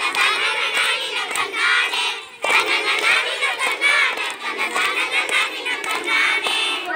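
A group of girls singing a Tamil kummi song together while clapping their hands, with a short break in the singing about two and a half seconds in.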